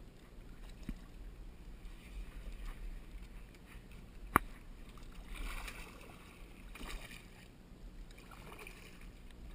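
Kayak paddling in a shallow spring run: soft paddle swishes and water sounds over a low steady rumble, with one sharp knock about four seconds in.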